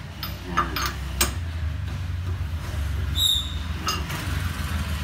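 Wheel lug nuts being tightened with a lug wrench: a few sharp metallic clicks over a steady low hum, with a brief high chirp a little past three seconds in.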